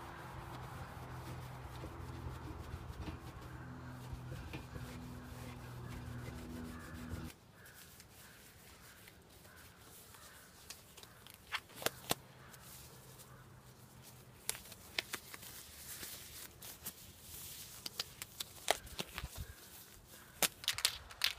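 Quiet handling sounds: a rag rubbing along an aluminium rail over a steady low hum, then, after an abrupt change about seven seconds in, scattered small crinkles and sharp snaps as disposable nitrile gloves are pulled on and worked over the hands.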